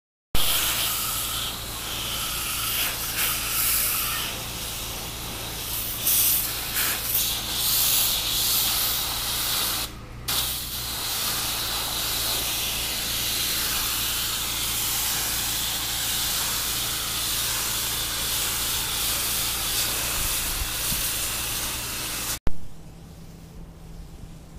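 High-pressure spray jet hissing steadily, with a machine's pump droning underneath. The jet stops for a moment about ten seconds in, then runs on until the sound cuts away near the end to a quieter hum.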